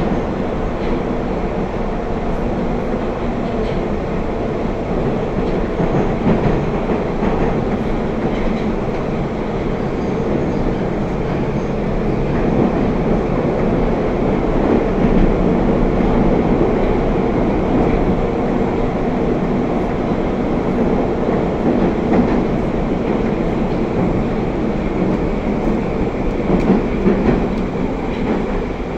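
Moskva-2024 Moscow metro train running between stations, heard from inside the car: a steady running rumble and motor hum with occasional wheel clacks. It grows slightly louder about halfway through.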